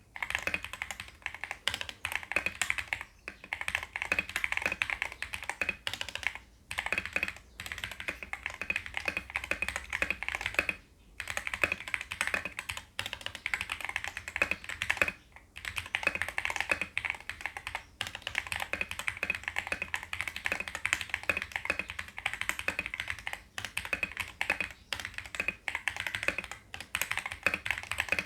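Fast continuous typing on a mechanical keyboard with lubed MMD Holy Panda tactile switches and XDA-profile PBT keycaps, a dense stream of keystroke clacks with short pauses now and then.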